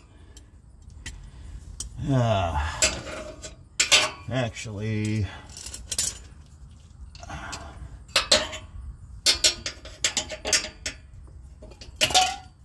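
Metal hand tools clinking and clattering: brake pliers and a screwdriver working at a rubber exhaust hanger under a car and being set down and picked up on a concrete floor, a run of sharp clinks. A strained groan falling in pitch about two seconds in.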